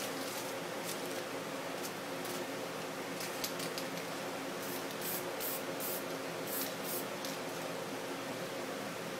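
Aerosol spray-paint can spraying in short hissing bursts: a few spread through the first half, then a quicker run of sprays about five to seven seconds in. A steady low hum runs underneath.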